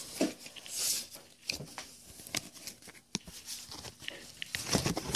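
Pokémon trading cards being handled and shuffled by hand: a run of soft clicks, slides and rustles of card stock against card stock, with a louder stretch of rustling near the end.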